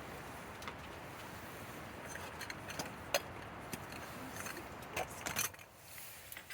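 Steady background noise with a handful of sharp clicks and knocks, the loudest about three seconds in and a cluster about five seconds in; the background drops away near the end.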